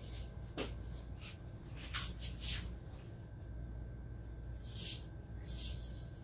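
Hand-twisted sea salt grinder over a pot, giving a series of short gritty rasps in clusters near the start, around two seconds in and again around five seconds in.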